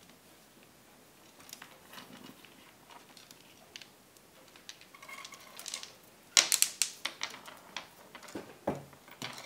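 Beads clicking against each other and the wire as they are threaded onto copper wire, faint and scattered at first, then a run of sharper clacks and knocks about six seconds in as the beaded piece is handled on the board.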